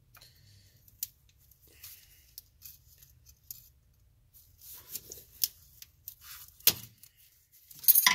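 Metal hand tool prying at the retaining clip on a turbocharger intake hose: scattered small metallic clicks and scrapes, with a sharp click a little before the end and a louder cluster of clicks right at the end.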